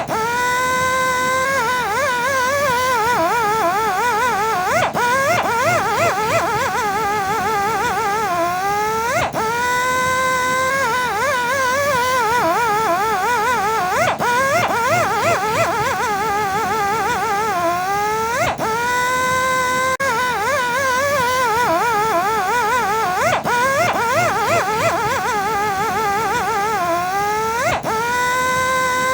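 Rotary buffing and polishing machine running with a high, wavering whine; about every four to five seconds its pitch sags under load and then sweeps quickly back up.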